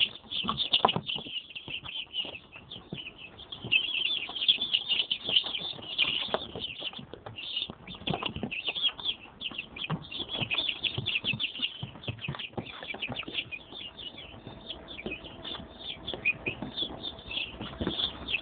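A brood of young chicks peeping continuously, many short high-pitched cheeps overlapping, with scattered scratching and scuffling as they move about.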